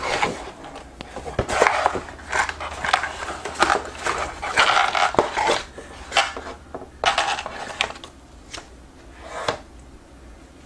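Packaging being handled: irregular rustling and crinkling of the keyboard's wrapping with light clicks and knocks as the keyboard and box contents are lifted out, quieter near the end.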